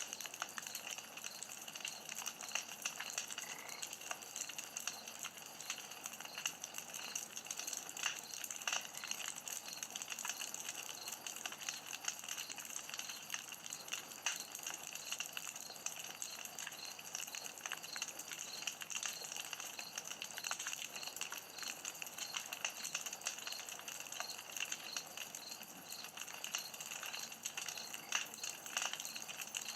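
Campfire crackling, with frequent sharp pops and snaps from the burning wood. Behind it runs a steady high-pitched background with a faint regular pulsing.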